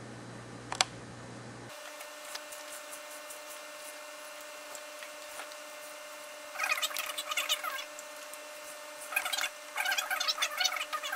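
Bursts of rapid clicking and rattling of hard plastic and metal parts knocking together as a threaded fitting is worked through a hole in a clear plastic tube. There is one sharp click just under a second in.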